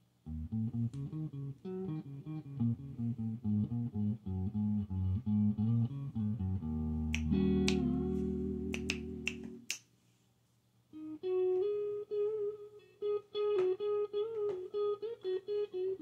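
Electric guitar played quietly through a Fender Deluxe Reverb tube amp and Joyo American Sound pedal over a looped bass line: a rhythmic low bass figure, then a held chord with several sharp finger snaps over it, and after a brief pause a single-note melody.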